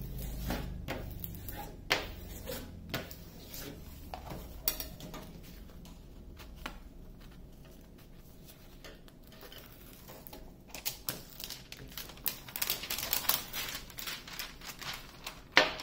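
Diamond painting canvas being handled: rustling and crinkling as it is smoothed with a hand tool and its paper edges are folded and lifted, with scattered taps and clicks. The handling gets busier a few seconds before the end, with one sharp click near the end.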